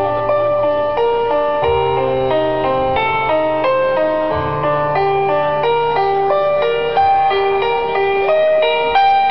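Keyboard music with a quick melody of short notes over long held bass notes that change every few seconds.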